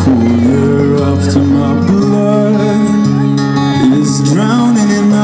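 A young man singing a pop ballad live into a handheld microphone, amplified through the stage PA over an instrumental backing.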